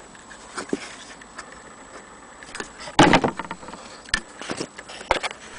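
Irregular metal clicks and clatter as parts of an antique Willcox & Gibbs chain-stitch sewing machine are handled, with the loudest clatter about halfway through and a few sharp clicks toward the end.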